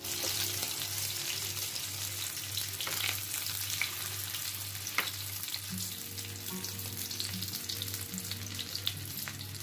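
Egg-coated chicken shami kababs shallow-frying in hot oil in a nonstick pan: a steady sizzle with scattered sharp crackling pops.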